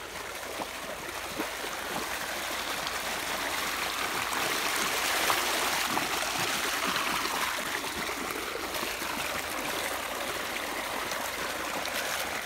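Water gushing steadily from a pipe outlet into a dirt channel, a continuous rush that swells a little in the middle.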